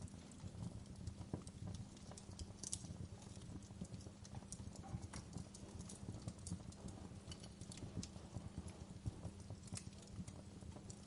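Fireplace wood fire crackling: irregular sharp pops and snaps scattered over a steady low rumble of burning.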